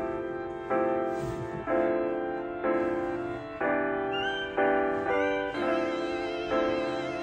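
Background instrumental music: sustained chords, each starting sharply and fading, with a new chord about once a second.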